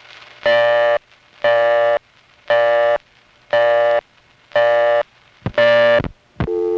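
Local telephone busy signal from a 1970s Bell System No. 5 Crossbar exchange: a buzzy tone switching on and off about once a second, six times. A brief, lower tone starts just before the end.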